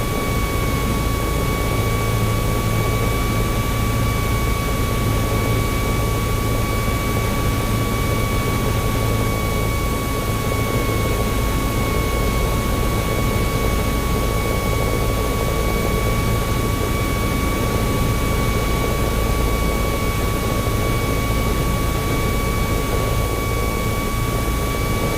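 Cessna 172's piston engine and propeller droning steadily inside the cabin, with a thin steady whine running through it that rises slightly near the end.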